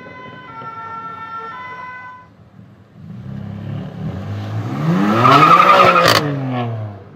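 BMW M4 F82's twin-turbo straight-six, through a loud Fi aftermarket exhaust, revving hard as the car accelerates past. The pitch climbs to a peak about six seconds in, with a sharp crack at the top, then falls away. Before it, a two-tone alarm sounds for about two seconds.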